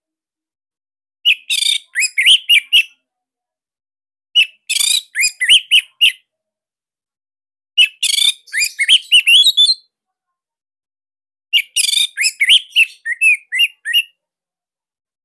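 Orange-headed thrush (anis merah) singing loud, rapid song phrases of quick rising and falling whistled notes, each opening with a harsh high burst; four phrases come in turn, separated by silent gaps of a second or two.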